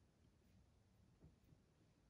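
Near silence: faint room tone, with one faint brief bump a little over a second in.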